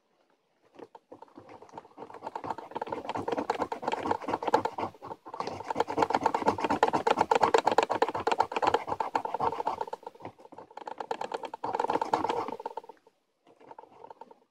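Rapid scratching at the coating of a scratch-off lottery ticket: many quick strokes in three spells with short pauses between, then a few faint scratches near the end.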